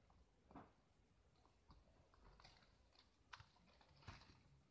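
Faint handling of paper and craft supplies on a cutting mat: soft rustles and a few scattered small clicks, otherwise near silence.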